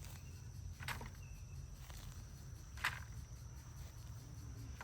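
Faint outdoor ambience with a steady low rumble, broken by two short soft knocks, about a second in and again near three seconds.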